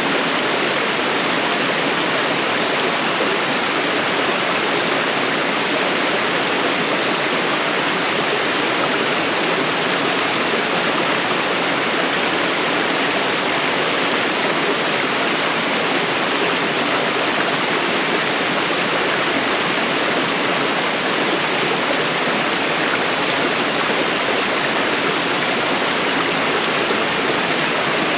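Waterfall: water falling and rushing over rock in a steady, unbroken rush of noise.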